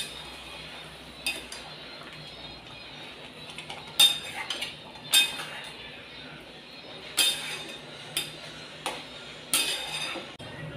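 A utensil stirring a wet curry in a metal pot, knocking and clinking against the pot's side at irregular moments, about eight times, loudest around four and five seconds in.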